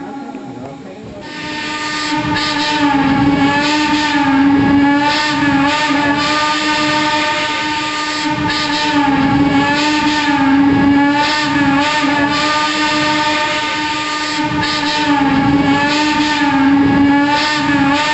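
Steam locomotive whistle on a Shay geared logging locomotive, blown as one long, drawn-out blast that swells about a second in and wavers in pitch, with a steady rhythm of exhaust puffs underneath.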